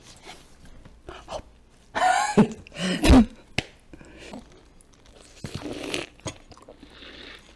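A short vocal squeal about two seconds in and a sharp thump a second later, then wet mouth sounds of someone biting into and sucking on a lemon half close to the microphone.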